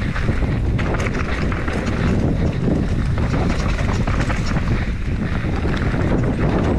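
Wind buffeting the microphone during a fast enduro mountain bike descent, with tyres rolling over the dirt trail and short rattles and knocks from the bike over bumps.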